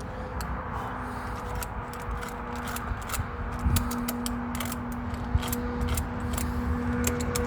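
A steady low hum, with scattered light clicks and taps of hand tools or metal parts being handled.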